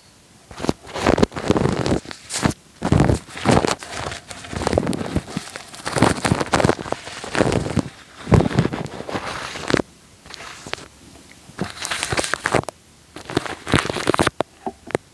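Wet, sticky material worked directly on an ASMR microphone, giving a close, irregular run of crackling, squelching clicks, with a short lull about ten seconds in.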